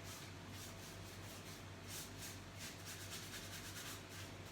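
Faint, quick repeated strokes of paint being spread over the fireplace surface, a soft rubbing about three or four times a second over a steady low hum.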